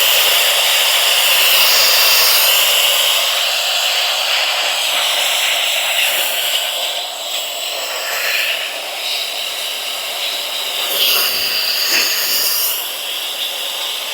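Small handheld electric air blower (air duster) running at a high-pitched whine with a rush of air, blowing sawdust and grit out of a chainsaw's blade mount. The whine dips and rises in pitch a couple of times near the end.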